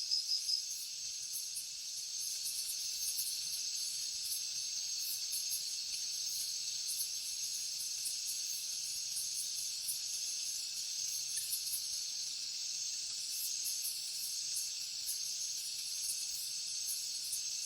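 Insect chorus: a steady, high-pitched hiss of many insects calling together, with rapid irregular ticking above it.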